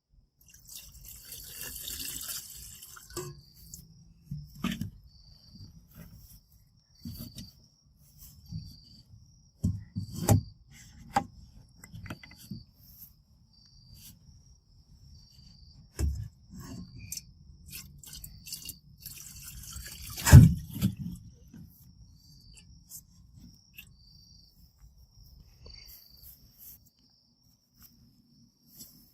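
A cricket chirping at a steady pace, about one short high chirp a second, over scattered knocks and clatters of handling; the loudest knock comes about twenty seconds in.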